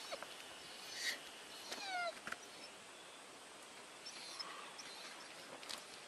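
German Shepherd whimpering: a couple of short, falling whines in the first two seconds, with scattered faint clicks of stones shifting underfoot.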